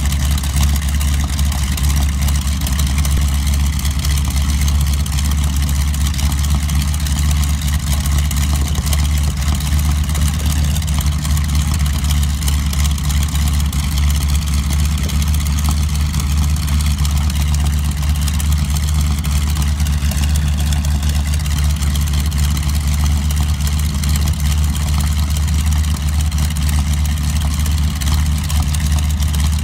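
North American SNJ/T-6 Texan trainer's nine-cylinder radial engine idling steadily on the ground, a low, even engine note with no revving.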